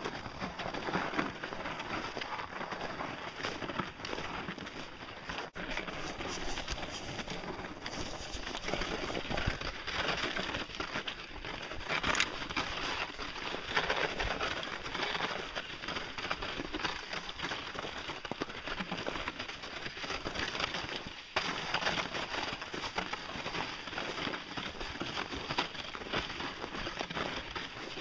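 Steady crunching of footsteps in Kahtoola MICROspikes on hard-packed snow, mixed with fleece clothing rubbing against the microphone.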